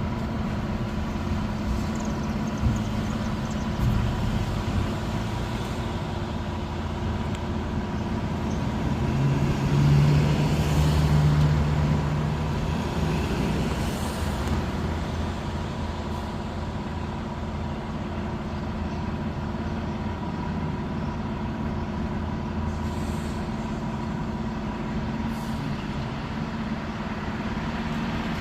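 Diesel engine of a large fire truck running, swelling louder about ten seconds in, with a few short air hisses.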